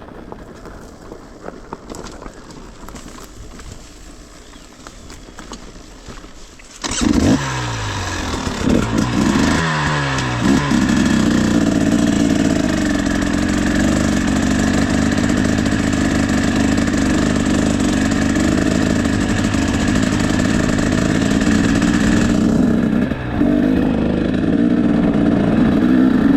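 KTM 300 EXC two-stroke enduro motorcycle with a Pro Circuit R304 exhaust. It is quiet at first, then about seven seconds in the throttle opens sharply and the revs climb in several rising sweeps. After that it runs loud and steady under way, with a brief drop in revs near the end.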